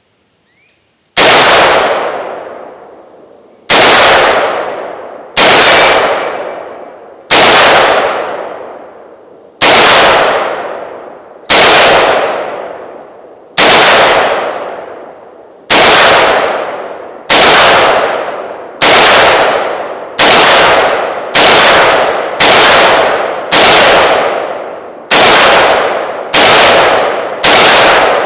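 Model 653 retro-clone AR-15 carbine fired in slow semi-automatic single shots, about seventeen loud cracks each with a long fading echo. The first shot comes about a second in, and the shots come 1 to 2.5 seconds apart, quickening toward the end.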